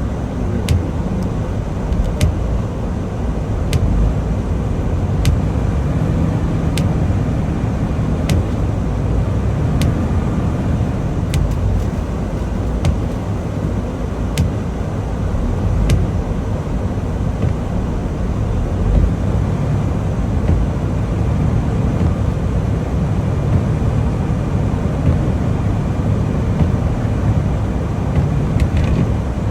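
Steady low engine and road rumble heard from inside a semi-truck's cab while it drives, with a light click about every second and a half through the first half.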